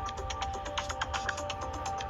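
Music: held notes that shift in pitch now and then, over quick clicking percussion.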